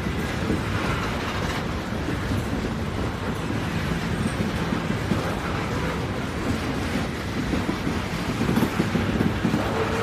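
Train running on the rails: a steady low rumble with track noise, no whistle.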